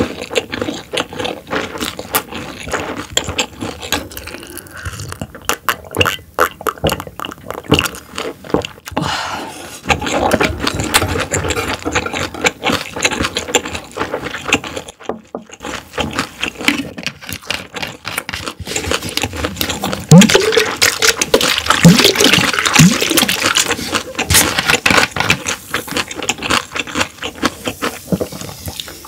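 Close-miked chewing of half-dried herring (gwamegi) wrapped in vegetables: a dense run of wet mouth clicks and crackles, louder for a few seconds about two-thirds of the way through.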